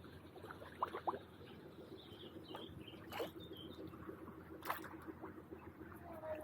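Faint sounds of a kayak and paddle on the water: a few sharp knocks, the loudest about a second in and near five seconds, with a few small high chirps in between.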